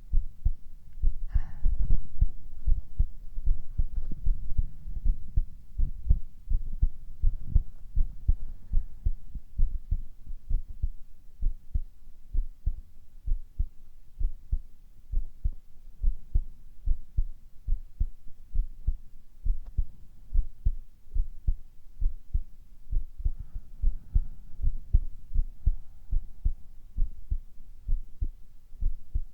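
A human heartbeat heard close up: a steady, even run of low, dull thumps.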